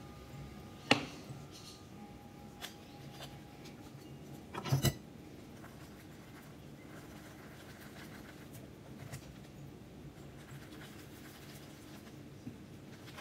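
Glass muller clinking down on a glass slab about a second in, a few knocks of glass on glass just before five seconds, then the muller rubbing quietly in circles as it grinds watercolour paint on the slab.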